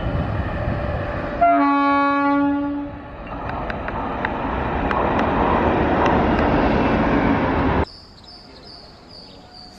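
Passing electric express train with a WAP-7 locomotive: running rumble, then one horn blast of about a second and a half, then the rushing clatter of coaches going by with scattered clicks. Near the end the sound cuts off abruptly to a much quieter stretch with faint, evenly repeated high chirps.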